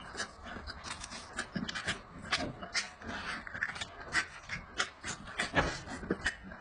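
A man chewing and lip-smacking as he eats goat meat off the bone with his hands: irregular mouth clicks and smacks, several a second.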